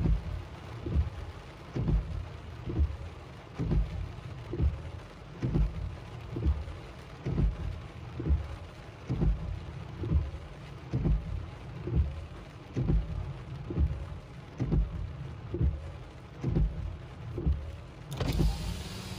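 Windshield wipers sweeping across a car windshield, heard from inside the cabin, with a low thump about once a second at each pass, over the patter of rain on the car. A louder hiss comes in near the end.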